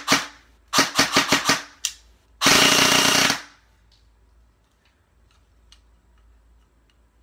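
G&P Stubby airsoft electric gun (AEG) with a high-speed Matrix Sonic motor on an 11.1 V LiPo firing. It fires two quick semi-auto shots, a fast string of five more and a single shot, then a full-auto burst of about a second, starting about two and a half seconds in.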